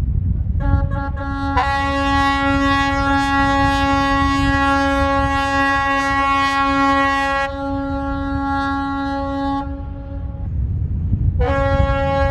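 Ship's horns sounding long blasts, two of them overlapping at first, dying away about ten seconds in; a new blast starts near the end. Wind rumbles on the microphone underneath.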